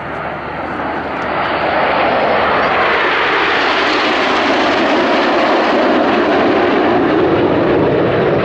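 Nine BAE Hawk T1 jets, with Rolls-Royce Turbomeca Adour turbofans, flying past low in close formation. The jet noise builds over the first two seconds, then holds loud while its pitch slowly falls as the formation passes.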